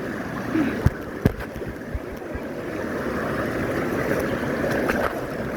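Stream water rushing steadily over rocks, with a couple of dull knocks about a second in.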